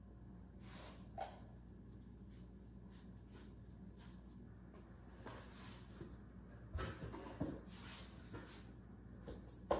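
Quiet room tone with a low, steady electrical hum. Scattered faint rustles and small knocks come and go, busiest about seven to eight seconds in, with one sharper knock near the end.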